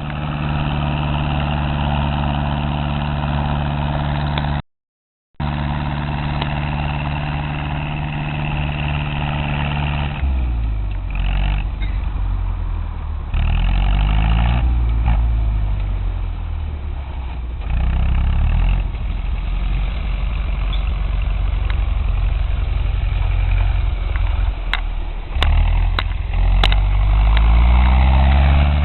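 Ursus C-360 tractor's four-cylinder diesel engine running under load, at a steady pitch at first, then rising and falling repeatedly in engine speed, and finishing on a higher, louder note. The sound drops out for under a second about five seconds in.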